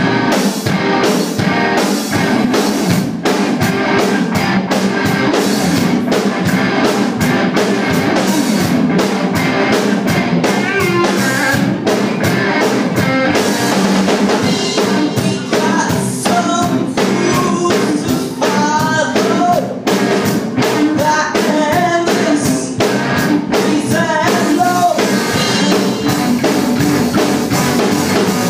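Live rock band playing, with drum kit and electric guitars and a singer's voice over them.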